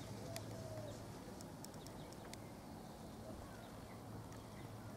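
Faint outdoor background: a steady low hum with a few faint, sharp high clicks in the first half and faint bird chirps.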